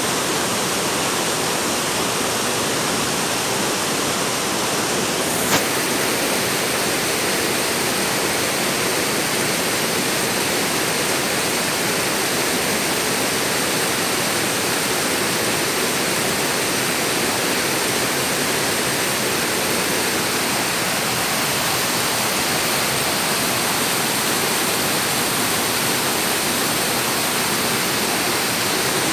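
A steady, even rushing noise with no break, with one sharp click about five and a half seconds in.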